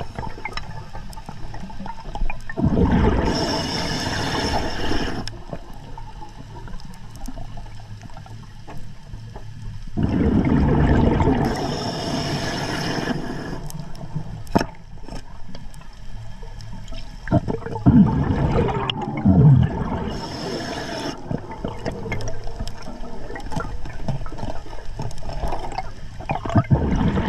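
A scuba diver breathing underwater: bubbly, gurgling breaths through the regulator in bursts of two to three seconds, about every eight seconds, with a few sharp clicks in between.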